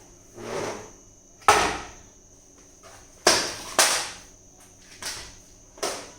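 Sharp knocks and clatters of plastic Lego Technic pieces being handled and pushed together, about six separate hits; the loudest comes about a second and a half in, with two close together in the middle.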